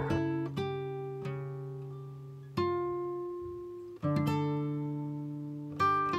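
Background music: acoustic guitar chords ringing out and slowly fading, with a new chord struck about every one and a half to two seconds.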